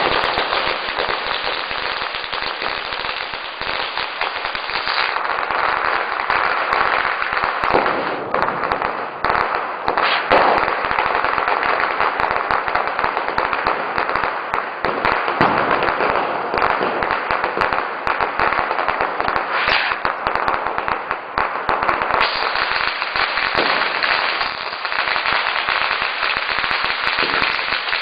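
Firecrackers going off in a rapid, unbroken run of sharp cracks and bangs, like a long Diwali firecracker string burning down.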